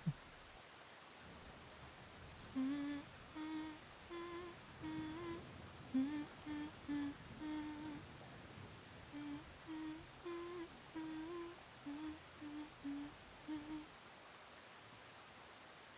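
A voice humming a slow lullaby tune in two phrases of short notes, with a brief pause between them; the humming stops a couple of seconds before the end.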